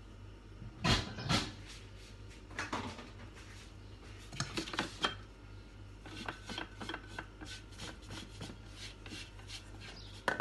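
A spatula scraping chopped chocolate down the sides of a Thermomix TM6's stainless steel mixing bowl, in short scraping strokes with scattered clicks. Two sharp knocks about a second in, and clicks of the plastic lid being lifted off and set back on.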